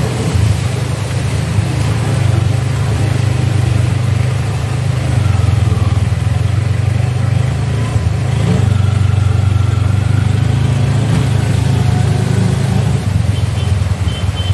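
A CNG auto-rickshaw's small engine running steadily with a low drone.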